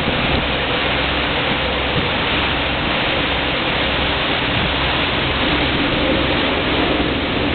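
Motorboat underway: a steady, loud rush of wind and water with the boat's engine droning underneath.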